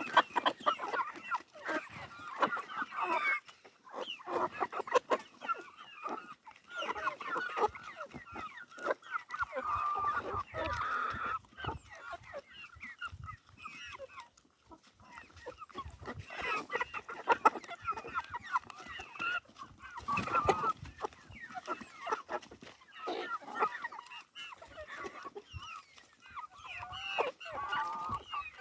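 A flock of backyard chickens clucking, many short calls overlapping throughout, with scattered light clicks among them.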